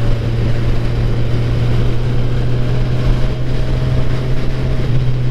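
Motorcycle engine running at a steady cruising speed, a constant low drone under a rush of wind on the microphone.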